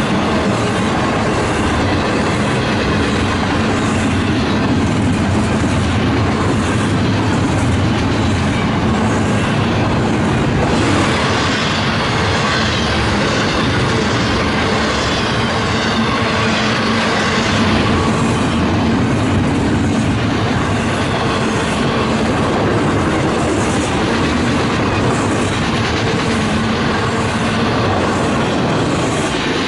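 Long intermodal stack train's freight cars rolling past at close range: a loud, steady rumble with wheels clicking rhythmically over the rail.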